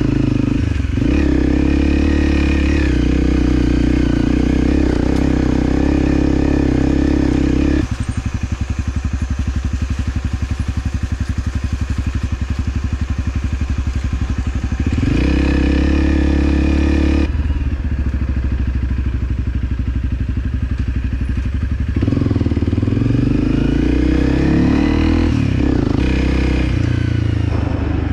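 Motorcycle engine running under throttle, then dropping to a lower, pulsing run when the throttle closes about eight seconds in and again after seventeen seconds. It picks up each time, with the revs rising and falling near the end.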